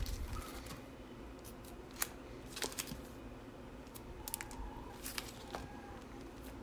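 Clear plastic comic-book bags crinkling and ticking as bagged comics are handled and shuffled: scattered faint sharp clicks and rustles over a low steady room hum.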